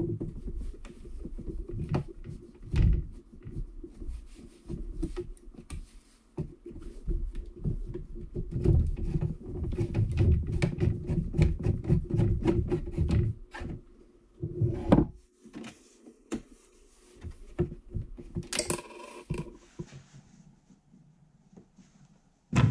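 Long metal rod worked through a hole in a bandsaw's sheet-metal frame, knocking, rattling and scraping against the metal in a long run of quick clicks and knocks, busiest about nine to thirteen seconds in. A faint steady hum sits underneath, and a single sharp click comes near the end.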